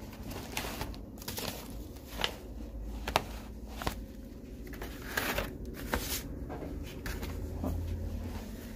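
Old, dry newspaper clippings rustling and shuffling as a hand sorts through a pile of them, with irregular crinkles and crackles.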